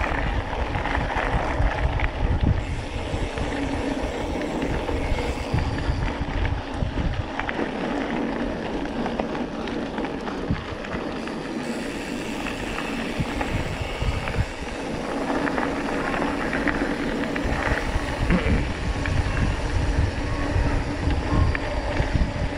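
Mountain bike rolling fast over a rutted dirt and gravel road, heard from a handlebar-mounted camera: steady tyre noise and rattle of the bike over bumps, with wind buffeting the microphone. The low rumble eases for several seconds in the middle, then returns.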